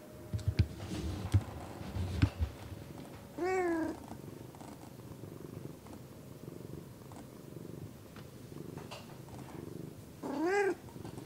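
Domestic cat purring steadily, with two short meows that rise and fall in pitch, one about three and a half seconds in and one near the end. A few soft knocks come in the first two seconds or so.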